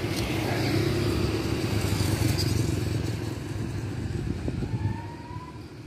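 A motorcycle engine running close by, then growing fainter about four and a half seconds in as it moves away.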